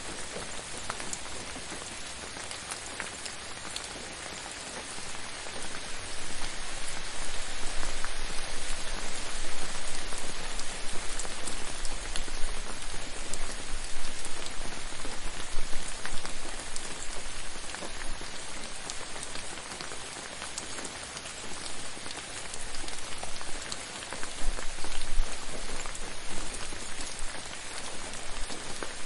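Gentle steady rain falling on a surface, a dense hiss of many small drops with faint separate drop ticks, its intensity swelling and easing a little now and then.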